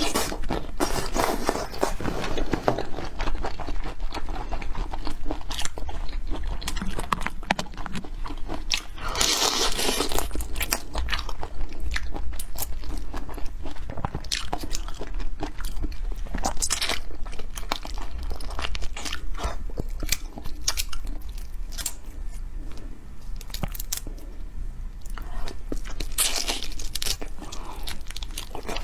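Close-miked eating of black tiger shrimp: steady crunching and chewing, with several louder crunchy bites spaced through the stretch.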